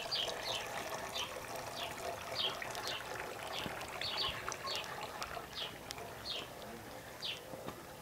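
Small tiered stone garden fountain trickling as water spills from basin to basin, fading somewhat in the second half. Over it a small bird chirps repeatedly: short, high, falling chirps about one to two a second.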